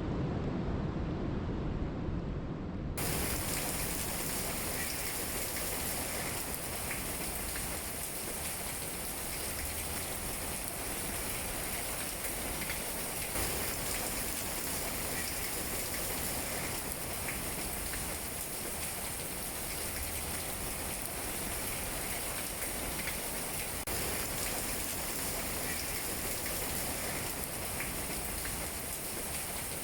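Steady rain falling. About three seconds in, the sound switches abruptly from a deeper, duller rush to a brighter, crisper patter of rain, which then holds steady.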